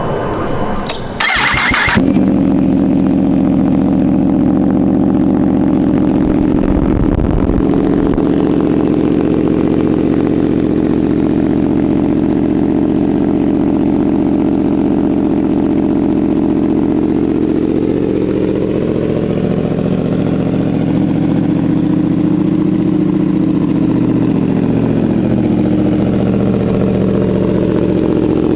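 A 2025 Yamaha R1's crossplane inline-four is started through an SC Project CR-T full exhaust system. It catches after a brief crank about two seconds in, then idles loudly and steadily. This is a warm-ish start, not fully cold. Later on, the engine speed rises gently and falls back over several seconds.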